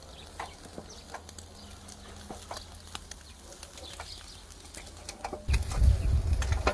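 Shashlik skewers over a burnt-down wood fire on a grill: faint scattered crackling over a low steady rumble, with a louder rushing noise coming in near the end.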